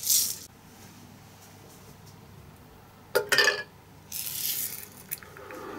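A diecast metal car body clinking sharply a few times against a glass jar as it is lowered into caustic soda solution with tweezers, about three seconds in. A short hiss comes at the start and another a second after the clinks.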